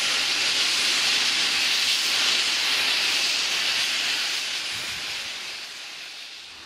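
GWR steam railmotor No. 93 hissing steam steadily as it pulls away, the hiss fading over the last couple of seconds.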